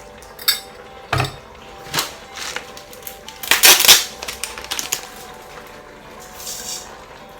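Dry rice being measured out with a cup and poured into the Instant Pot's inner pot: scattered clicks and knocks, with a louder rattling pour about three and a half seconds in.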